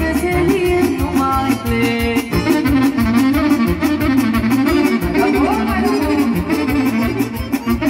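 Band playing fast folk dance music loudly, a saxophone-like reed instrument carrying a wavering melody over a steady quick beat.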